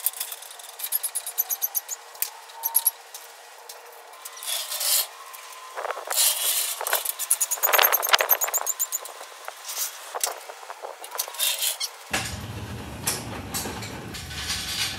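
A floor jack being pumped and lowered under a car chassis, with repeated sharp metallic clicks and clanks, then, about twelve seconds in, a rumbling clatter as the chassis rolls on caster wheel dollies across a concrete floor.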